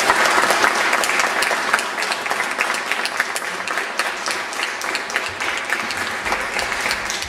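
Audience applauding: many people clapping steadily, easing off a little near the end.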